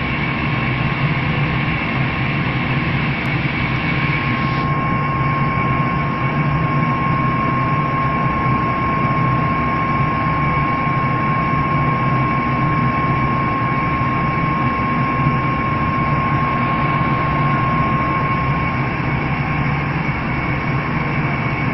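Laser engraving machine running as it burns a texture into a wool knit sweater: a steady machine noise with a thin, high, steady whine that fades out a few seconds before the end.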